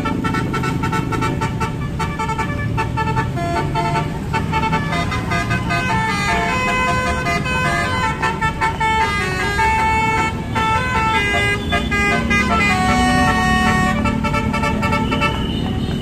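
Tour bus's Basuri telolet horn playing a tune: a run of stepped multi-tone horn notes changing pitch several times a second. Engine and traffic noise from the buses and motorbikes runs underneath.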